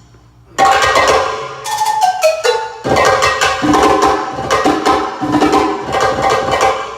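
A rock band sound-checking: amplified, distorted electric guitar with percussion, cutting in loudly about half a second in. A quick run of falling notes comes around two seconds in, followed by rhythmic chords and strikes that thin out near the end.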